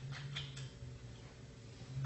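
Light plastic clicks and taps as a goose-egg tray is fitted into a small plastic egg incubator: three quick clicks in the first half-second and another near the end, over a low steady hum.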